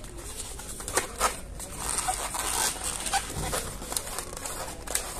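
Inflated 260 latex twisting balloons squeaking and rubbing against each other and the hands as they are twisted into the dog's legs, with a couple of sharper squeaks about a second in.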